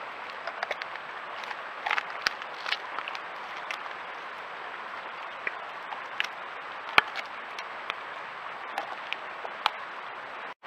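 Bear crunching a ham bone: irregular sharp cracks and crunches, the loudest about seven seconds in, over a steady hiss.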